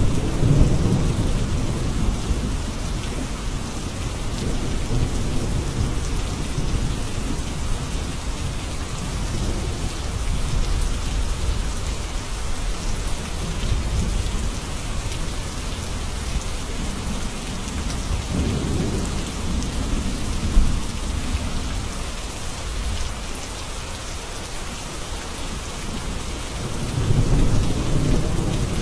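Steady heavy rain hissing, with low rolls of thunder swelling near the start, about two-thirds of the way through, and again near the end.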